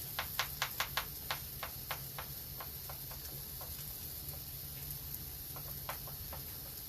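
A run of sharp clicks, about five a second at first, then slowing and fading, with a few more near the end, over a steady hiss.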